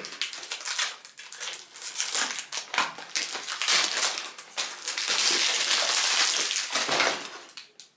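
Crinkly plastic wrapping on a perfume box being picked at, peeled off and crumpled by hand, a dense crackling that is loudest for a few seconds past the middle and dies away near the end.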